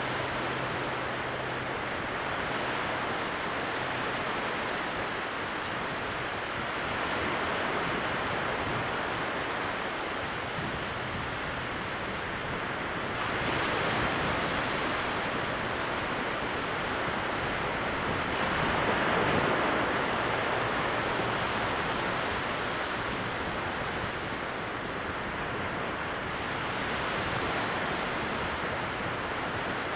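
Calm sea at very low tide: small waves breaking gently along the distant water's edge. A steady wash of surf swells a few times, loudest about two-thirds of the way through.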